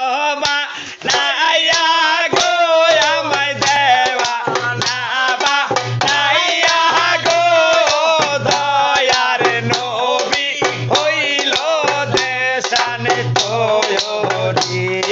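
Male voice singing a Bangla boitoki gaan folk song with a wavering melody, over percussion accompaniment: many sharp clicks and a low drum beat about once a second.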